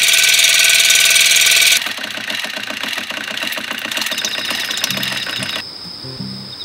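Cordless water flosser running in normal mode: its pump motor buzzes steadily under the hiss of the water jet. It cuts off sharply about two seconds in, leaving a quieter rhythmic sound, and crickets start chirping in the last couple of seconds.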